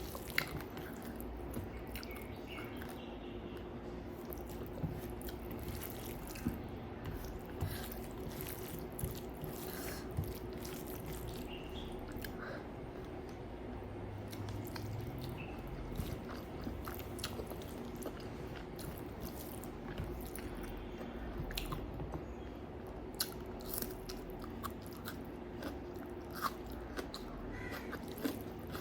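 Close-up eating sounds: a person chewing and biting food, with irregular crunches and wet mouth clicks, over a steady low hum.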